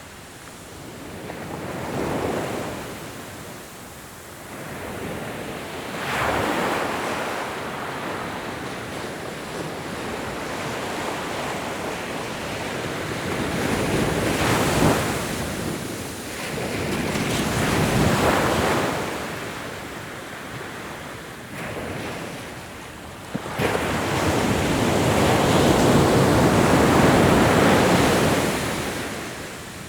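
Ocean surf: waves breaking and washing in, a rushing noise that swells and fades every few seconds. The longest and loudest wash comes near the end.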